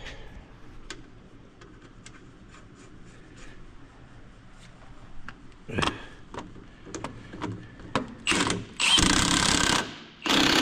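Milwaukee cordless impact wrench run in short bursts, then one longer burst about nine seconds in, tightening the fastener on a hydraulic cylinder mount. Faint ticks and clinks before the first burst.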